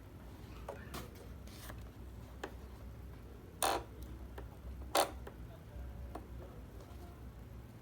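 Handling noise: a scatter of light clicks and knocks, with two louder short scraping clicks about halfway through, over a low steady hum.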